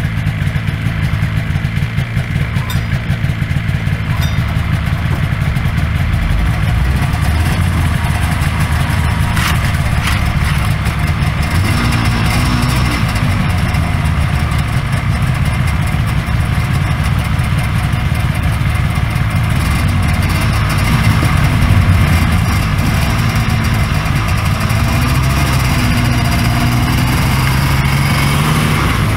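1983 Polaris Indy Trail 433cc snowmobile's two-stroke engine idling steadily, its pitch rising and falling a little with light throttle in the second half.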